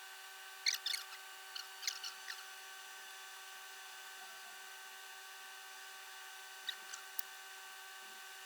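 Steady electrical hum, with small sharp clicks and rustles in two clusters near the start and a few more about seven seconds in.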